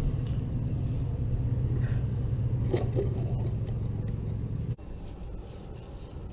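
Steady low engine hum, cutting off abruptly about five seconds in and leaving a fainter low rumble.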